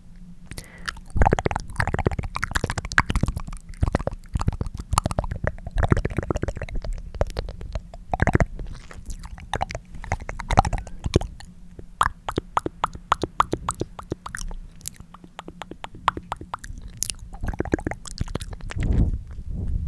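Close-miked wet tongue clicks: many sharp clicks, some fuller and wetter than others, with a fast run of small clicks about halfway through.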